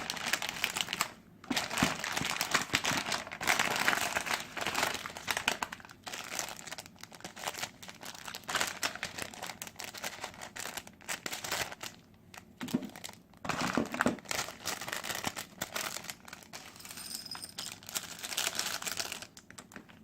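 Plastic instant-noodle packaging crinkling as it is handled and torn open, with a few short pauses.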